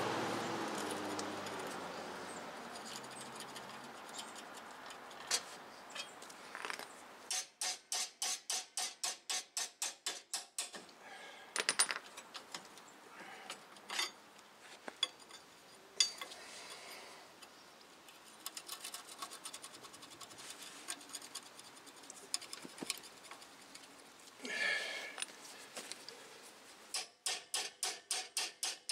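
Ratchet wrench clicking in quick runs of about six clicks a second as rusty front wheel hub bolts are worked loose, with scattered metal clinks of tools between the runs. A hiss fades out over the first few seconds.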